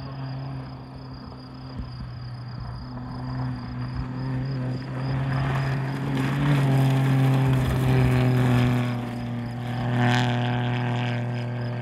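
Dacia Sandero 0.9 TCe rally car's three-cylinder turbo engine running hard at fairly steady revs as the car passes on gravel. It is loudest in the middle, with a brief louder burst about ten seconds in. Insects chirp faintly behind it.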